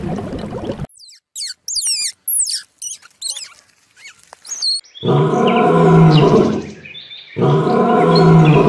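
A quick run of animal sounds: a short buzzing, then rapid high chirps and twitters from a bird, then two long, loud, low calls from a large animal, each lasting about two seconds.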